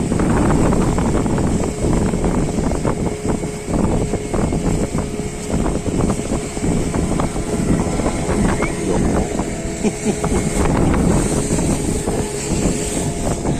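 Motorised fishing boat's engine running steadily under way, with a constant drone and water noise, and wind buffeting the microphone.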